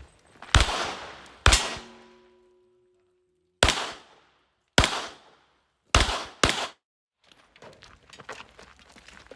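Pistol shots on a shooting range: six single shots at uneven spacing, the last two about half a second apart, each with a short echo tail.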